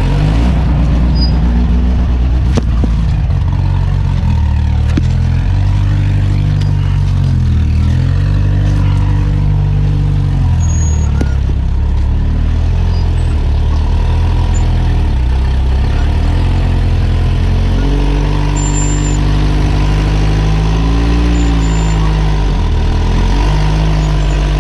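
Rock crawler's engine running under load, its revs rising and falling again and again as it works over the rocks, with a few sharp knocks.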